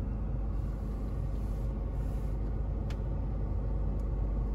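Steady low rumble inside the cabin of a parked, running 2016 BMW X5, with two short sharp clicks about three and four seconds in from the iDrive controller as the menu is worked.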